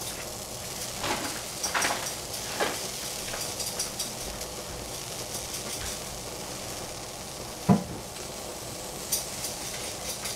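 Sliced shiitake mushrooms heating in a dry stainless steel saucepan over a gas flame: a steady sizzle with scattered small crackles. A single sharp knock comes about three-quarters of the way through.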